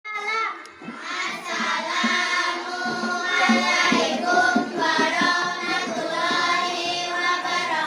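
A group of young girls chanting together in unison, a melodic line with long held notes.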